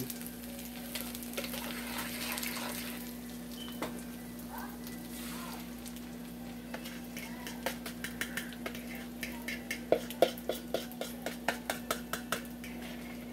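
Beaten eggs poured into a hot pan of frying potatoes sizzle, over a steady low hum. From about halfway in, a utensil clicks and scrapes rapidly against the mixing bowl to get out the last of the egg.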